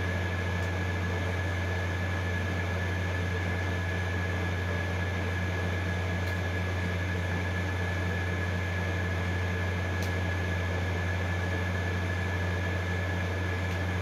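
Steady low hum and hiss of a running room air conditioner, unchanging throughout, with a few faint clicks.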